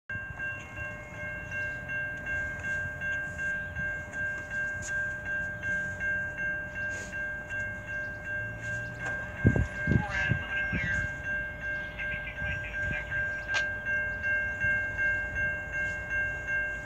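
Railroad grade-crossing warning bell ringing steadily, about two strokes a second, as it does when a train is approaching. A few dull thumps come about halfway through.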